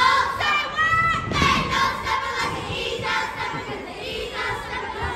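Young steppers chanting and shouting in unison as they perform, their voices rising and falling together, with a single low thud about a second and a half in.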